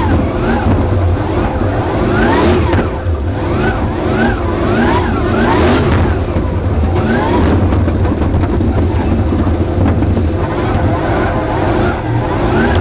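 1000 hp LSX 376 twin-turbo V8 in a Nissan Silvia S14, heard from inside the cabin, revving hard again and again, its pitch climbing and dropping every second or so, with a few sharp cracks from the flame-shooting exhaust.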